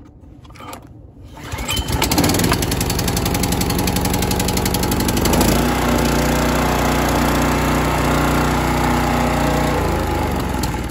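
Kohler RH265 6.5 hp, 196 cc small engine pull-started cold on choke, catching about a second and a half in and running fast. About five and a half seconds in its sound steadies as the automatic choke opens and it runs at full throttle; it eases slightly near the end as the lever is moved toward idle.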